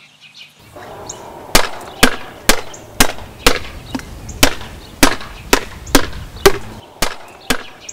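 About a dozen sharp knocks, evenly spaced at roughly two a second, over a steady rushing noise that stops shortly before the last knocks.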